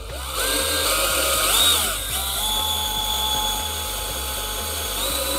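Cordless drill running under load as it drills out a hole in the diesel heater's plastic case to fit a marine fuel fitting. The motor whine starts about a third of a second in, wavers in pitch around two seconds in, then holds steady.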